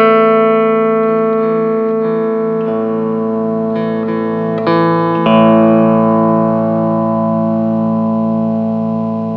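Hawaiian steel guitar playing slow, long-held notes over sustained chords, with fresh notes struck about five seconds in.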